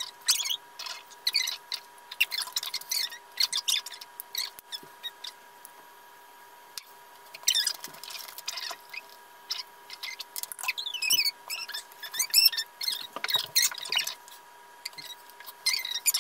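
High, squeaky chattering in short wobbly bursts, like voices in a sped-up time lapse, over a faint steady electrical whine.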